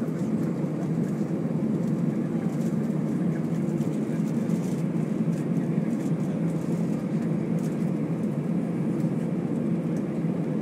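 Steady low cabin rumble of an Airbus A320 airliner's jet engines at low power as it taxis, heard from inside the passenger cabin.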